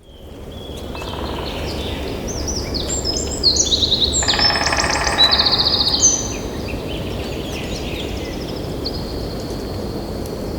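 Several birds chirping and trilling, busiest in the first half, over a steady low background rush.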